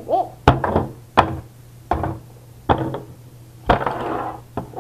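Small plastic action figures and toy accessories being knocked and banged against a tabletop: a series of about six sharp knocks, irregularly spaced, with a short hissing noise about four seconds in.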